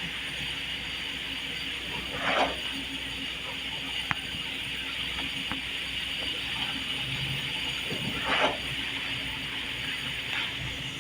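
Steady mechanical whirring with two brief scraping swishes, one about two seconds in and one about eight seconds in, and a single sharp click between them.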